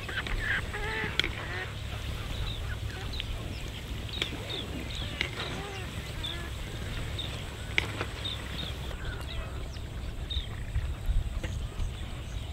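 Hot oil sizzling as fritters deep-fry in a clay pot, with a few sharp pops. Birds call again and again throughout in short chirps.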